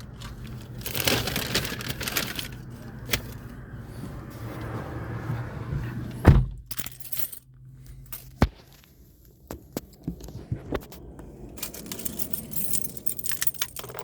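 Rattling, clicking and rustling as someone settles into a car's driver seat and handles things, with a heavy thump about six seconds in and a sharp knock about two seconds later.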